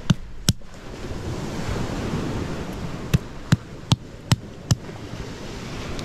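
A hand-held stone pounding wild almonds against a flat stone to crack the shells: two sharp knocks at the start, then a run of five about every 0.4 s from about three seconds in. Steady surf noise throughout.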